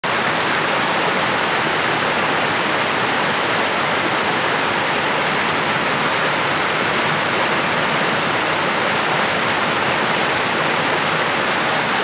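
A mountain stream cascading over rocks: a steady, even rush of water that cuts in suddenly from silence.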